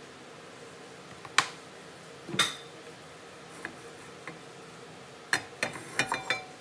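Kitchenware being handled while oil goes into a nonstick frying pan: a sharp knock, then a ringing clink about two and a half seconds in, a couple of light ticks, and a quick run of clicks and clinks near the end.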